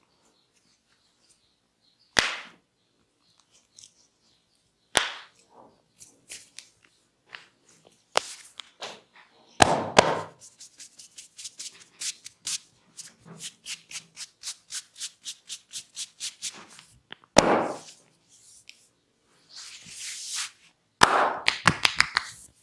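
A barber's hands striking during a percussive head massage: single sharp slaps every few seconds, a run of rapid, even taps about four a second in the middle, and a quick flurry of slaps near the end.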